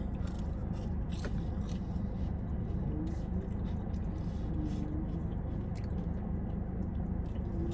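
Close-miked chewing of a patty melt sandwich, with soft mouth sounds and small clicks, over a steady low hum.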